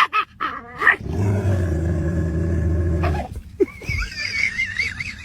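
A dog growling, one low sustained growl of about two seconds, after a few short sharp sounds. A high wavering tone starts near the end.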